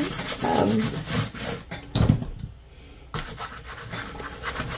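A hand rubbing and smearing wet paint across a sheet of paper in quick scratchy strokes. There is a low thump about two seconds in, then a short pause before the rubbing resumes.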